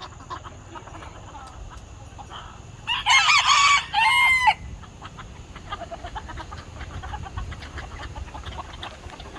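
A rooster crowing once, about three seconds in, lasting around a second and a half, with chickens clucking quietly around it.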